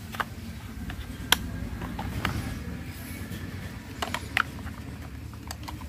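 Plastic clicks and knocks as toy wheels are pressed onto the axles of a plastic toy JCB truck: several separate sharp clicks, the loudest about a second in, over a low steady background rumble.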